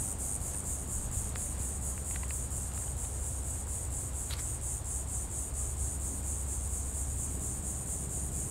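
Insects chirping in a steady high, pulsed trill of about five pulses a second, over a low rumble.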